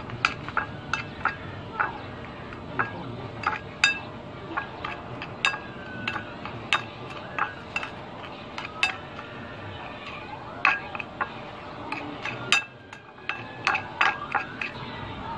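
Metal spoon clinking and scraping against a ceramic bowl while stirring seasoning into a sauce: irregular short clinks with a brief ring, about one to two a second.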